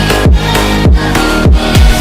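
Electronic dance music with a heavy beat: deep, pitch-dropping bass kicks about twice a second under sustained synth tones.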